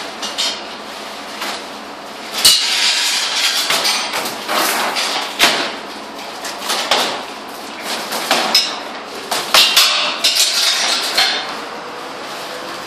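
Metal fireplace firebox being shifted and knocked into place: irregular metallic knocks and clanks, a dozen or more scattered strikes with a bright ring.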